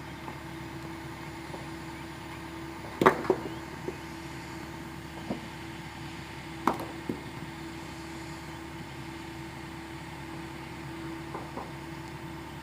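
Engine running steadily at the sand mine, with a few short sharp knocks, the loudest about three seconds in and another a little before seven seconds.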